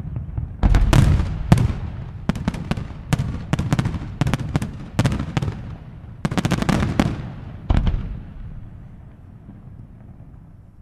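Aerial firework shells bursting in a rapid series of sharp bangs, each trailing off in an echoing rumble. The bangs stop a little under eight seconds in, and the rumble fades away.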